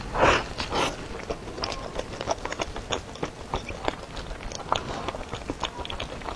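Close-miked bite into a soft pork-floss-topped bun about a second long, followed by chewing with many small wet mouth clicks.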